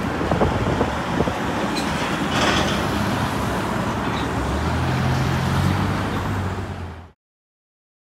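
Road traffic at an intersection, with a city bus pulling away: engine hum and tyre noise, a brief hiss about two and a half seconds in, and a low engine drone growing stronger near the end. The sound cuts off abruptly about seven seconds in.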